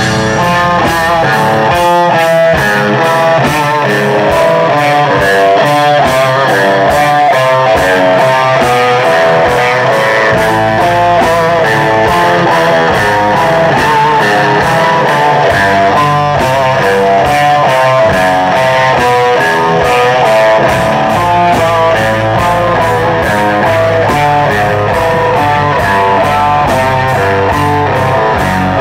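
Three-piece metal band playing live and loud: electric guitar and bass guitar over fast, driving drums.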